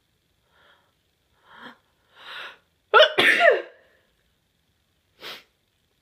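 A person sneezing: three short breaths, each louder than the last, build up to one loud, voiced sneeze about halfway through, followed by a short breath near the end.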